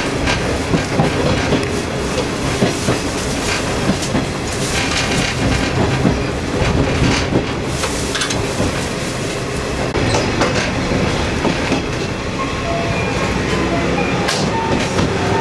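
KiHa 205, an ex-JNR KiHa 20-series diesel railcar, heard from inside while under way: its DMH17 diesel engine runs steadily, with the wheels clacking irregularly over rail joints and points. A faint rising whine comes in near the end.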